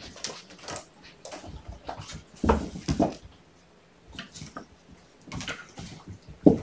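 Kittens playing: irregular knocks, thumps and rustles as they run and jump among toys, a cat tree and a cardboard scratcher. The loudest are two knocks about two and a half and three seconds in, and a sharp one near the end.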